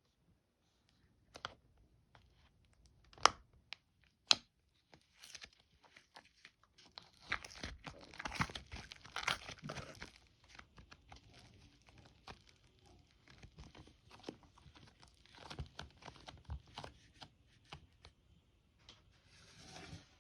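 Slime being stretched and pressed by hand: a few sharp pops in the first few seconds, then a dense run of sticky crackling and tearing around the middle, with scattered smaller pops and crackles after.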